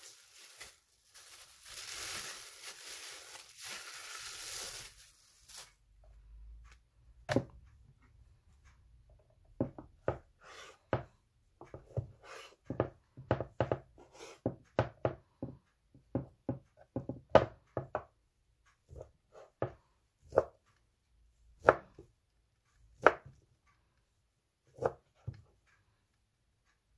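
Plastic wrapping rustling for the first few seconds, then a kitchen knife cutting deli meat slices on a wooden cutting board, the blade knocking on the board in an irregular run of sharp strikes.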